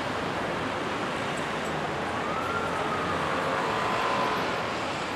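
Steady city road traffic noise, with a faint wavering high tone coming in about two seconds in and fading out about two seconds later.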